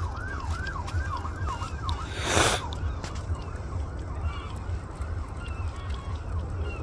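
Emergency vehicle siren on a fast yelp, its pitch sweeping up and down about three times a second, fading out about three seconds in. A short loud rush of noise comes about two and a half seconds in, over a low wind rumble on the microphone.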